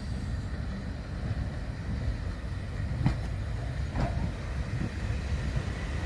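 Diesel multiple unit drawing slowly into the platform, its engines rumbling steadily, with a couple of sharp knocks about three and four seconds in.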